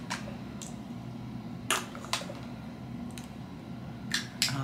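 Quiet small-room tone with a steady low hum and a few scattered soft clicks and rustles of a smartphone being handled.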